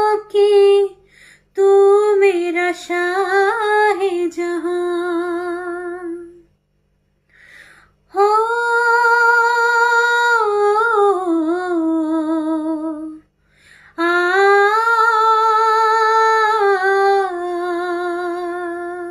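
A woman's voice singing wordless held notes with vibrato, with no accompaniment, in three long phrases with short breaks for breath between them.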